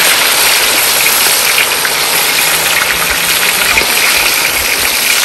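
Snakehead fish pieces deep-frying in hot oil in a wok: a loud, steady sizzle full of fine crackling pops.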